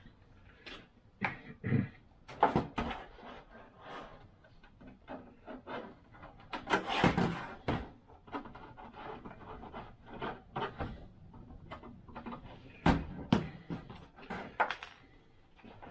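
Handling noises of 3D-printed plastic model parts on a workbench: irregular light clicks and knocks, with a longer scraping rustle about seven seconds in.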